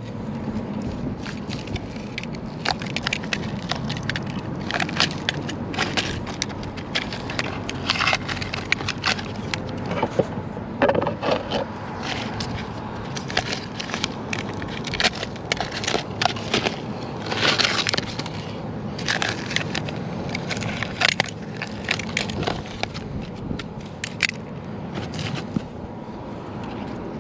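Work noise from plumbing installation: a steady low rumble under frequent irregular knocks, clacks and clatter.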